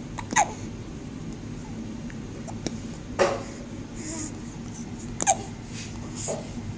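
A one-month-old baby hiccuping: four short, sudden hiccups two to three seconds apart, the last one fainter.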